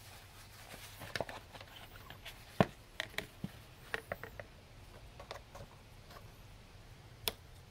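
Scattered light clicks and knocks as a plastic oil funnel is lifted out of the engine's oil filler neck and a screw-on oil filler cap is handled and fitted. The sharpest knock comes about two and a half seconds in.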